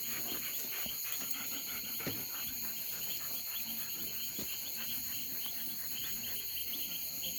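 Night chorus of crickets and other insects: a steady, high-pitched chirring with a fast pulsing trill, broken by a few faint ticks.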